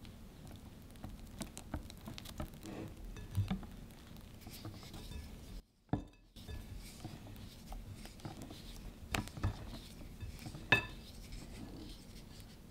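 Wire whisk folding whipped egg whites into egg-yolk batter in a glass bowl: soft wet mixing with irregular light taps and clicks of the wires against the glass. The sound cuts out for a moment just before the middle, and there is one sharper click near the end.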